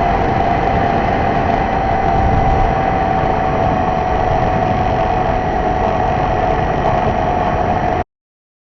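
R/C model airplane's motor and 3D-printed propeller running at a steady pitch, with a rush of air noise. The sound cuts off abruptly near the end.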